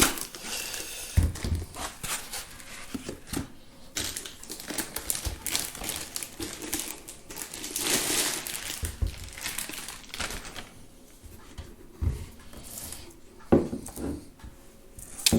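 Packaging being pulled off a boxed bench power supply: irregular rustling and crinkling of plastic wrap and foam, with scattered light knocks and clicks as the unit is handled.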